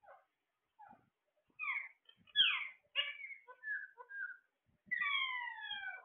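Caged parakeets calling: a string of short chirps and squawks, then near the end a longer call of about a second that falls in pitch.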